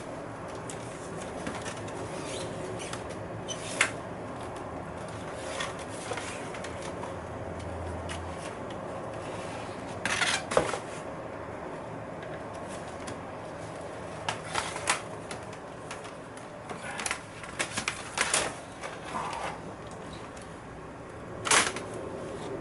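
Scattered clicks, taps and light knocks of small hard plastic and metal laptop parts being handled, in irregular clusters over a steady background hum.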